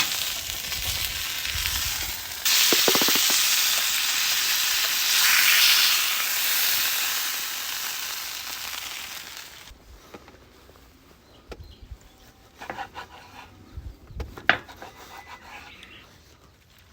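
Steak sizzling in a hot pan, a steady hiss that gets louder a few seconds in and cuts off suddenly about ten seconds in. After that, only a few light knocks and clicks.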